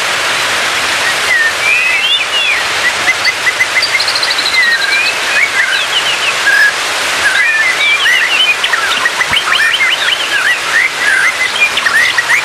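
White-rumped shama singing: varied whistled phrases and quick chirps, with a fast run of short rising notes in the second half, over a steady hiss.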